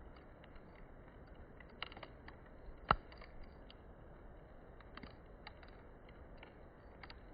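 Wood fire crackling: irregular sharp pops and snaps over a low hiss, with one loud pop about three seconds in.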